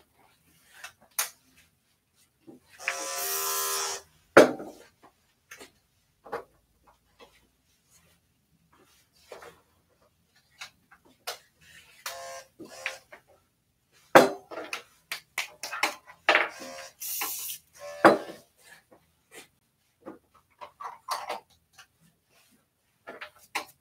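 Grooming tools and small objects being handled and set down: scattered clicks and knocks, two of them sharp and loud, with a short electric buzz of about a second, like a small motor, about three seconds in and again around seventeen seconds.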